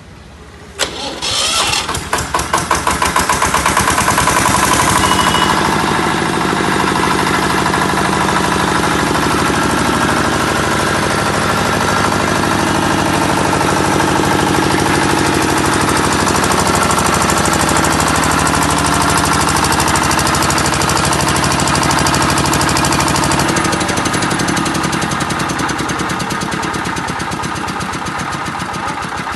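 Compact air-cooled diesel generator set starting: a brief crank, then the engine catches within a second or two and rises to a steady running speed. The running note changes and eases slightly about three-quarters of the way through.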